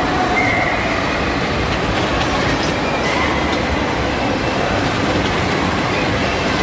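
Bumper cars running around an indoor rink: a steady, loud rumble of the cars rolling and whirring over the floor, with faint high tones coming and going.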